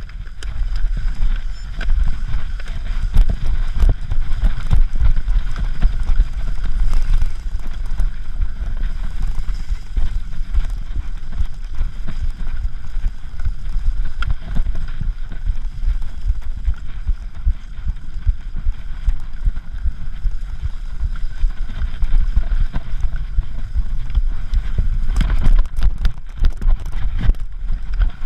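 Wind buffeting a handlebar-mounted microphone over the rattle and jolting of a cyclocross bike ridden fast across rough, bumpy grass, a low rumble broken by many small knocks.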